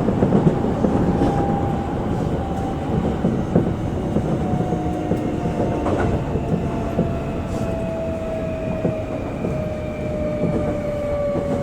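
Electric commuter train slowing on the approach to a station: the traction motor whine falls slowly in pitch as it brakes, over a steady rumble of wheels on rail with occasional clicks from rail joints. Near the end a lower steady hum comes in.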